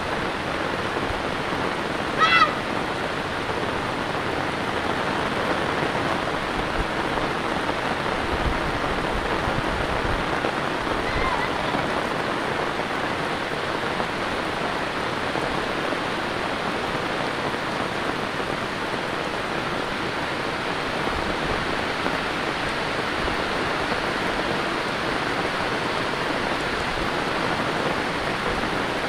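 Heavy rain falling steadily, a dense even hiss. About two seconds in, a single brief pitched cry cuts through it and is the loudest sound.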